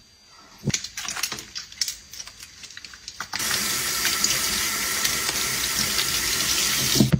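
A chrome mixer tap running into a washbasin over hands being washed: water comes on about halfway through and runs steadily, then cuts off suddenly near the end. Before it, a few light clicks and taps.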